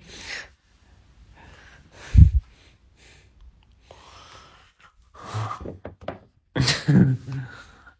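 A dull thump about two seconds in, then two short, low human vocal sounds, breaths or murmurs, near the end.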